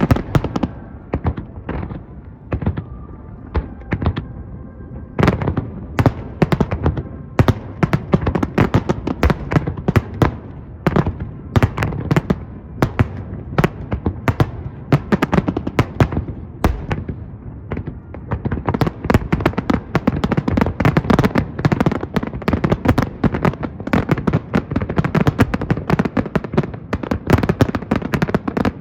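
Aerial fireworks finale: shells bursting in quick succession with booming bangs and crackle. The bursts come ever closer together and become a near-continuous barrage over the last ten seconds.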